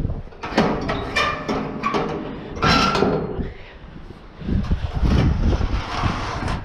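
Sheet-steel panel gate being pushed open: a run of metal knocks, rattles and clanks for about three seconds as it is unlatched and swung. Low wind buffeting on the microphone follows near the end.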